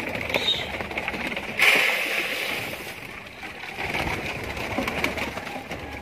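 A flock of domestic pigeons cooing and flapping as they crowd together to feed. About one and a half seconds in comes a sudden loud rush of wing and scuffling noise that fades over a second or so.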